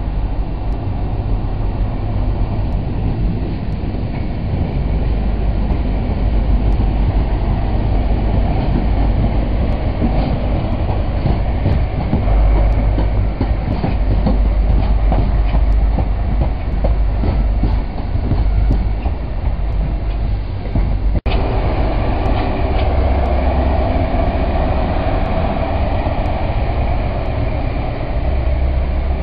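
High Speed Train (Class 43 diesel power cars with Mark 3 coaches) passing close by, a loud steady rumble of engine and wheels on the rails. The sound drops out for an instant about two-thirds of the way through.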